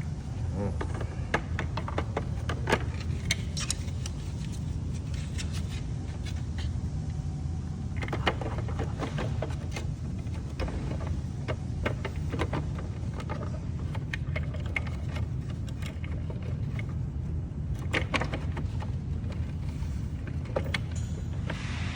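Scattered clicks and knocks in several clusters as a side turn-signal and camera housing is worked and pressed back into place on a motorhome's body, over a steady low hum.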